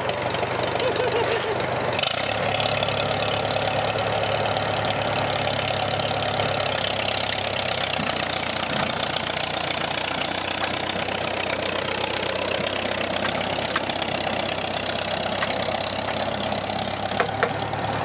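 Farmall farm tractor's engine running steadily under load as it tows a pickup truck out of the brush.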